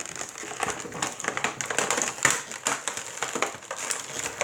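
Plastic toy packaging crinkling and crackling in quick, irregular rustles as it is worked open with some effort.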